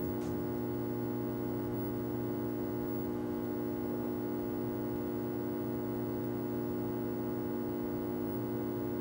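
Steady electrical mains hum from the stereo system through the speakers, while the turntable spins with the stylus not yet on the record.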